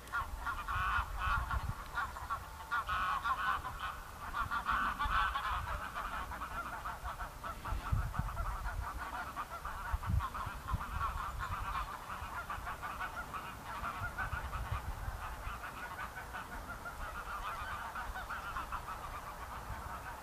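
A flock of water birds calling all at once: a continuous clamour of overlapping honking calls, busiest in the first few seconds, over a low rumble.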